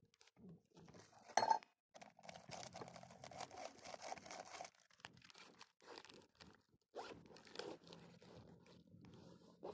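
Intermittent crunching and scraping handling noises, with a sharp click about a second and a half in.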